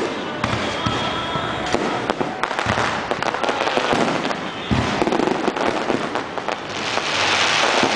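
Fireworks display going off: a dense run of bangs and crackling stars, with a brighter, hissing crackle building near the end.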